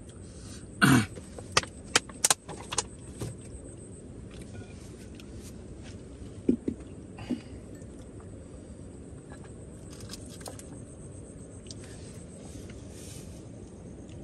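Handling noise as a plastic water bottle and a small ceramic bowl are moved on a rock ledge. A cluster of sharp clicks and knocks comes in the first three seconds, and two more come around six and seven seconds in, over steady low background noise.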